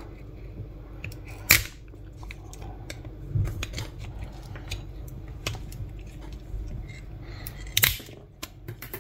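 Chevrolet Cruze key fob's plastic case being pried open with a flat-blade screwdriver: scattered clicks and small cracks as the plastic clips give way. The sharpest snaps come about a second and a half in and again near the end.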